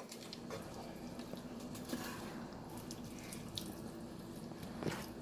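Faint steady sizzle of rice and greens cooking in a pan, with scattered light ticks and a single sharper click near the end.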